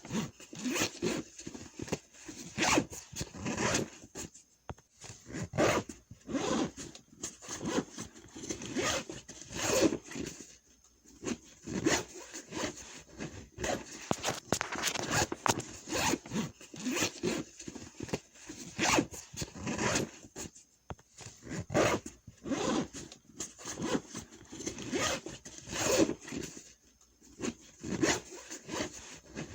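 Backpack zipper being pulled back and forth over and over: quick rasping strokes, several a second, broken by short pauses.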